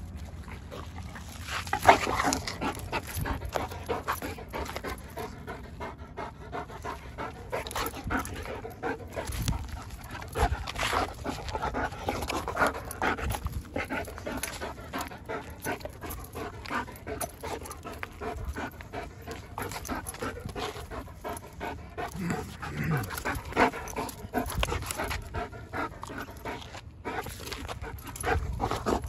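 Dog panting fast and hard while tugging on a rope toy, the breaths coming in a rapid, continuous run. A brief low falling sound comes about three-quarters of the way through.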